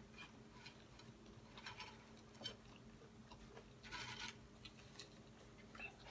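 Faint close-miked chewing of a burrito bite, with small mouth clicks scattered throughout and a brief rustle about four seconds in as tortilla chips are picked up off the plate.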